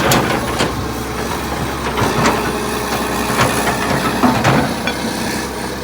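John Deere 790 excavator's diesel engine running steadily, with several sharp metallic knocks and clanks from the machine working at intervals.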